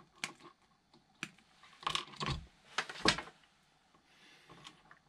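Hard plastic RC chassis parts and a hex key being handled on a workbench: scattered clicks and knocks, with a clatter about two seconds in and a louder knock about three seconds in, then quieter handling.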